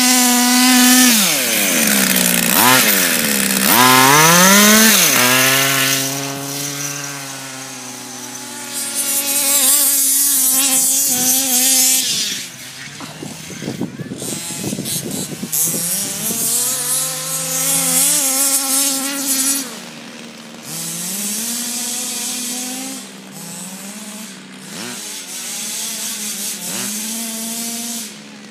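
Small two-stroke petrol engine of a large-scale RC baja buggy being driven hard. The note holds steady at first, then rises and falls again and again with the throttle. A rougher, noisier stretch comes about halfway through.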